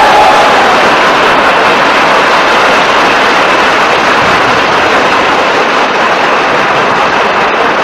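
Audience applauding, loud and sustained, the clapping massed into one even wash of sound.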